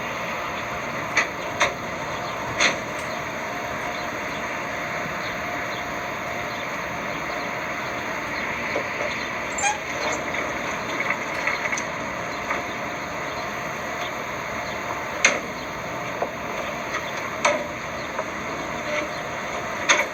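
Steady background noise with scattered sharp knocks and clicks from a metal pickup-bed toolbox being moved and locked in place: a few early on, a cluster about ten seconds in, and more near the end.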